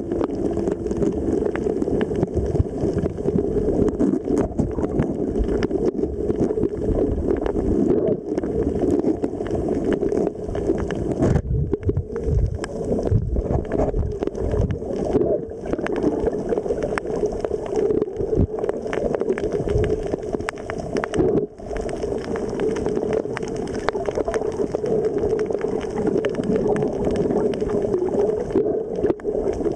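Muffled underwater noise as picked up by a camera in a waterproof housing: a steady low rumble with water gurgling and knocking against the housing, with a few brief dips.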